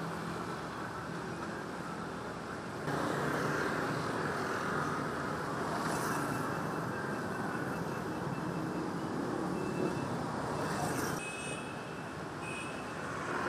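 City street traffic noise: a steady wash of passing vehicles that steps up in level about three seconds in. A few faint, short high beeps come near the end.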